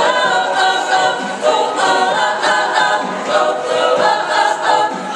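A vocal group singing a cappella, several voices in harmony with a pulsing rhythm and no clear words.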